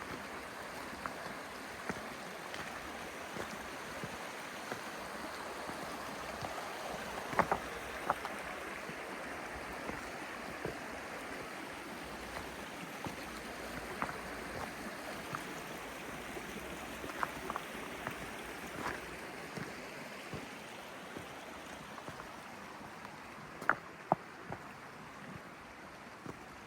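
Small stream babbling steadily over its bed, with scattered brief clicks and plinks.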